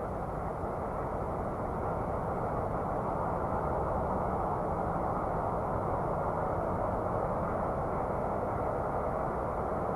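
Steady, muffled, low noise with no distinct tones, an ambient space soundscape presented as the sound of the planet Saturn; it swells slightly in the first few seconds.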